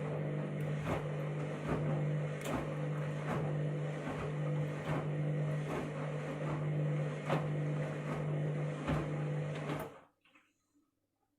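Washing machine on a rapid wash, its motor turning the drum with a steady hum and a regular knock of the tumbling load about every 0.8 seconds. The motor stops suddenly near the end, as the drum pauses between turns.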